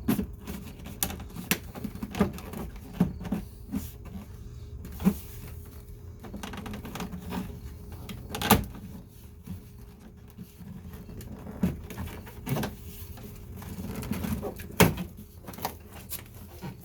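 Rear door panel of a Mercedes-Benz W124 being pressed and knocked onto the door to seat its hooks: irregular clicks and knocks, three of them louder.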